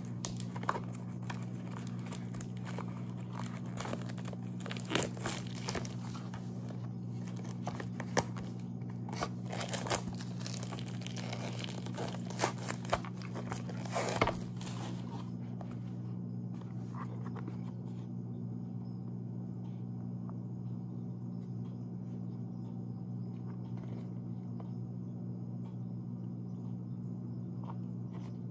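Clear plastic wrapping crinkling and crackling as it is peeled off a small cardboard product box, with sharper crackles as it tears free. The crinkling stops about halfway through, leaving a steady low hum.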